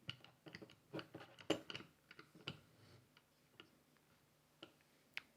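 Light clicks and taps of a small wood-and-metal bench clamp being handled and shifted on a bench, several close together over the first two and a half seconds, then a few single ticks.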